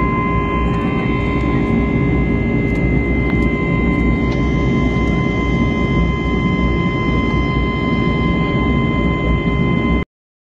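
Airliner turbofan engine heard from inside the cabin in flight: a loud, steady rush with a constant high whine of fixed tones over it. The sound cuts off abruptly just before the end.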